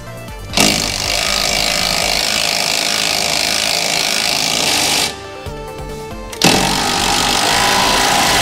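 Impact wrench hammering in two long bursts, running down the new lower control arm's bolts before their final torque tightening.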